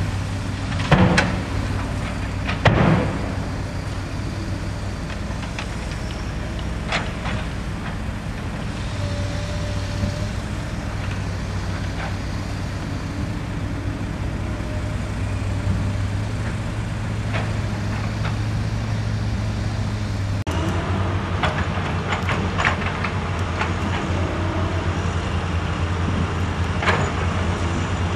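Diesel engines of crawler excavators and tipper trucks running steadily with a low hum. Sharp knocks of heavy equipment come in the first few seconds and again several times in the last third.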